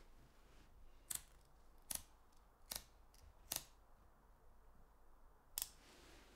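A cigarette lighter clicked five times in repeated tries to light a cigarette: four sharp clicks less than a second apart, then a pause and one more near the end, over faint room tone.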